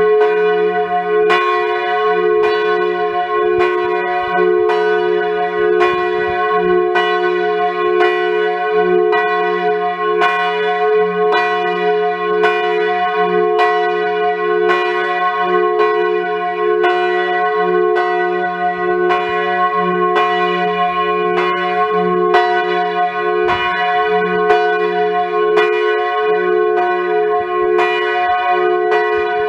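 A large bronze church bell tuned to F, the Grassmayr campanone, swung by an electric drive (distesa), its clapper striking at a steady pace of roughly three strikes every two seconds. Each stroke rings into the next.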